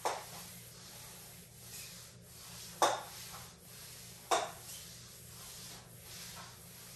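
Exercise glider discs under the feet sliding on a wood-look floor: three sharp clacks as one foot's glider hits the other, at the start, about three seconds in and again a second and a half later, with a faint sliding rub between them.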